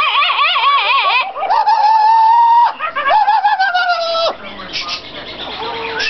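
Yellow-crowned Amazon parrot calling loudly: a quavering, warbling call, then two long held whistle-like notes, the second sliding slightly lower, cutting off abruptly about four seconds in.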